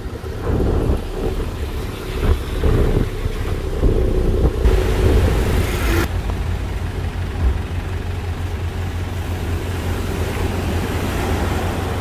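Road vehicle running, a steady low rumble, with a brief hiss about five seconds in that cuts off suddenly.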